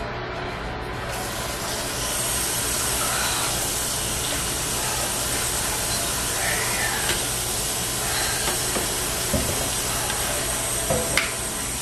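Kitchen tap running water into a plastic cup: a steady hiss that starts about a second in, with a few light knocks near the end.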